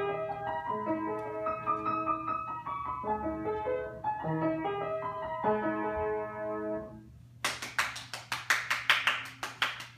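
A short tune played on a piano, its notes ending about seven seconds in, followed by a few people clapping.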